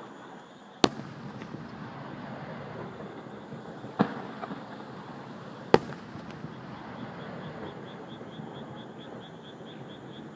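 Aerial firework shells bursting overhead: three sharp booms, about a second in, at four seconds and just before six seconds, with crackling between them. Insects chirp steadily underneath in an even, high-pitched pulse.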